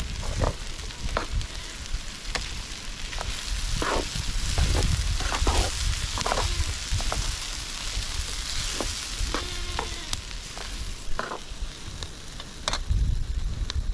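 Minced meat, onions and potatoes sizzling in a frying pan over a wood fire, with a metal ladle scraping and knocking against the pan as the food is stirred. The sizzle is loudest around the middle.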